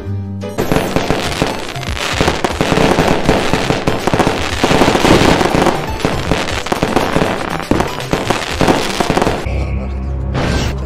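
A barrage of fireworks going off at close range, dense cracks and bangs one on top of another for about nine seconds, with voices mixed in. Near the end the bangs stop and music with a heavy bass line takes over.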